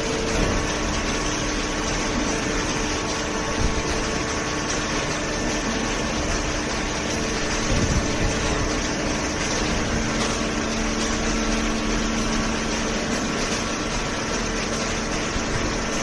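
Hydraulic waste-paper baling line with its belt conveyor running: a steady machine hum over an even hiss, with a couple of held tones that fade in and out.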